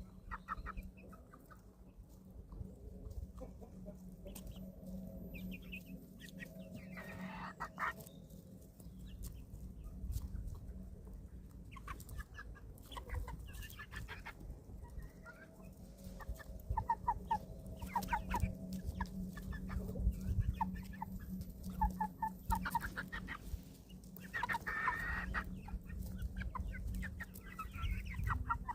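Eleven-week-old chicks clucking and calling as they feed: short calls come in scattered clusters, busiest in the second half, over a low steady hum.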